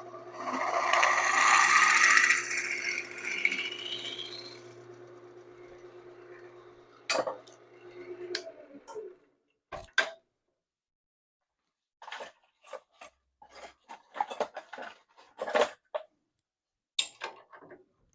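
Wood lathe motor running with a steady hum while a loud scraping noise on the spinning piece rises in pitch over the first few seconds. The motor stops about eight seconds in, followed by scattered knocks and clinks of wood and tools being handled.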